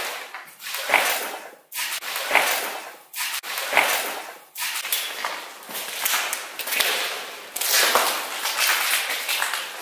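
Hissy, noisy recorder playback of a supposed electronic voice phenomenon, a faint voice captioned as 'Perda!!'. The same short noisy snippet plays three times, about a second and a half apart, and is followed by denser, steady hiss-like noise.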